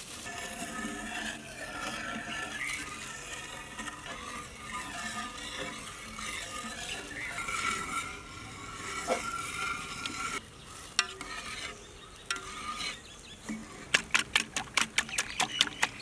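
Wire balloon whisk beating a large batch of raw egg batter with chopped vegetables in a big aluminium pot: wet stirring and sloshing, turning near the end into quick metallic clicks, several a second, as the whisk strikes the pot.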